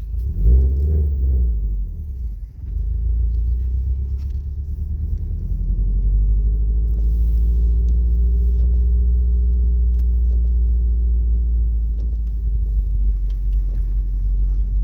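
Subaru Legacy on the move: a steady low rumble of engine and road noise, with a louder swell about half a second in, then building a few seconds in and holding steady.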